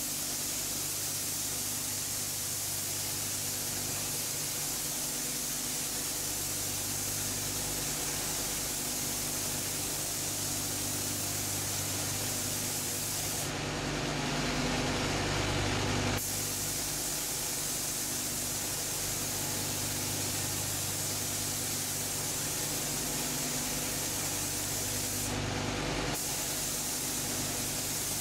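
Air-driven gravity-feed paint spray gun hissing steadily as it sprays paint onto a car body, growing louder for a couple of seconds around the middle, over a steady low hum.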